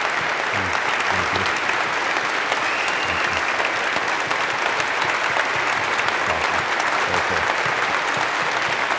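Large church congregation applauding steadily, with a short whistle about three seconds in.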